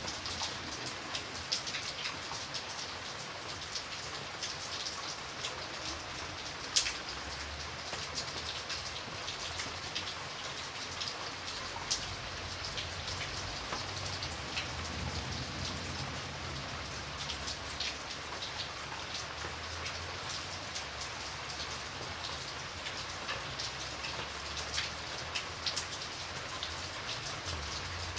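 Steady rain falling, with many individual drops pattering and ticking on a surface. One drop lands louder about seven seconds in.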